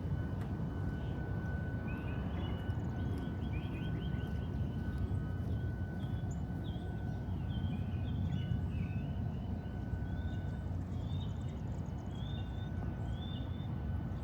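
Small birds chirping repeatedly in short, quick notes over a steady low rumble, with a faint constant high whine throughout.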